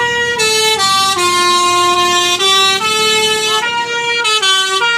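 Telolet basuri bus horn playing a melody: a run of loud, held horn notes that step up and down in pitch, each lasting from a fraction of a second to about a second.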